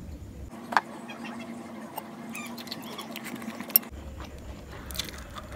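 Wooden fork and spoon knocking and scraping against a ceramic plate while eating, with small scattered clicks and two sharper knocks, one a little under a second in and one near the end.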